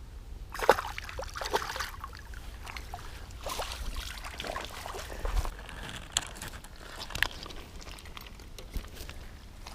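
River water splashing and trickling, with scattered short splashes and sloshes.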